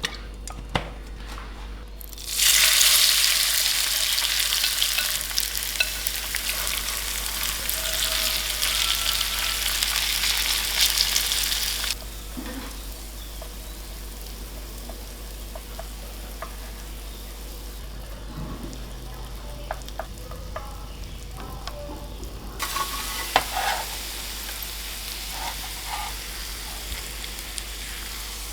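Food sizzling as it fries in hot oil, with a few light utensil clicks. The sizzle starts suddenly about two seconds in, turns much quieter midway, and comes back loud near the end.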